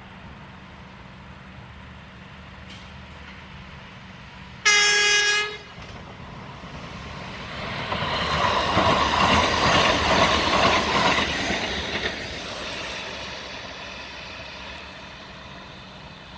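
Baltimore Light Rail train sounding one short horn blast about five seconds in. It then rolls past over the grade crossing, its wheels on the rails growing louder, peaking around ten seconds in and fading away.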